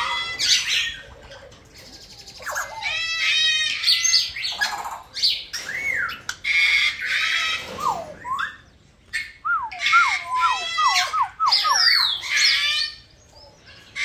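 Parrots calling loudly, in a string of harsh, rasping calls mixed with gliding whistles. About ten seconds in comes a quick run of wavering whistled notes.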